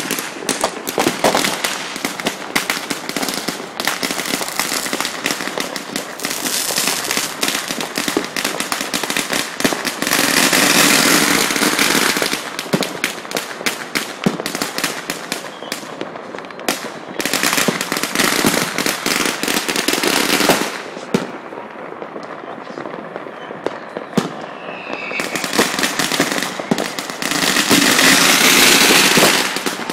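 Consumer fireworks going off in a dense, continuous crackle of firecracker pops and bursts. There are two louder stretches of steady hissing crackle, one about ten seconds in and another near the end.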